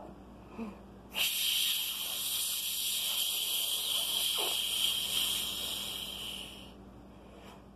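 A long hissing breath blown out through the mouth, letting out a deep breath held in a breathing exercise. It starts about a second in, holds steady for about five seconds and tapers off near the end.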